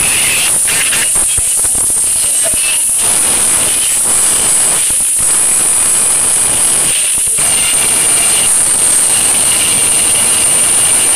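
A loud, steady hiss-like noise, strongest in a high band, with no clear tune or pitched sound.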